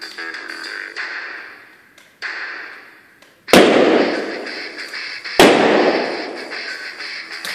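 Two balloons bursting about two seconds apart, popped by a PVC pipe studded with thumb tacks. Each is a sharp bang with a long echo ringing on in a large church hall.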